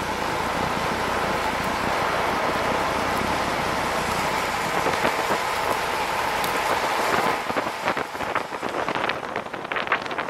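Wind rushing over the microphone together with urethane longboard wheels rolling fast on asphalt at downhill speed. The steady rush turns choppy and uneven about three-quarters of the way through.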